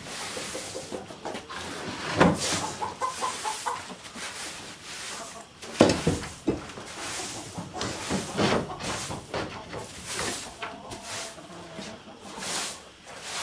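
Chickens clucking as they come in through a coop's small pop-hole door, with a few sharp wooden knocks, the loudest about two and six seconds in, as the door is opened, and footsteps rustling through wood-chip bedding.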